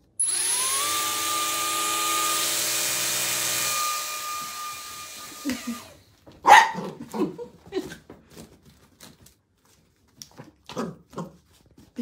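A light-up toy ball gives a steady electronic whirring buzz for about six seconds, then a corgi puppy gives a series of short barks.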